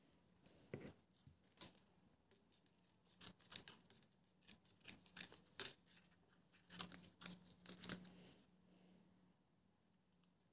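Small curved scissors snipping through printed paper: a run of faint, quick snips and clicks as small pieces are cut out.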